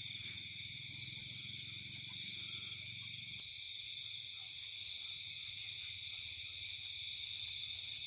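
Night insect chorus of crickets trilling steadily at several pitches at once, the highest pulsing in short chirps.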